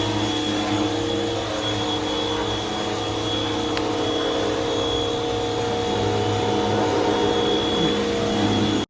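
A motor-driven machine running steadily: a loud rush with several steady humming tones and a thin high whine over it.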